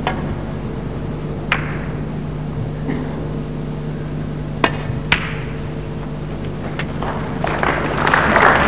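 Snooker balls clicking: several sharp, separate knocks of cue tip on cue ball and ball on ball, a few seconds apart, as a red is potted. Near the end audience applause builds.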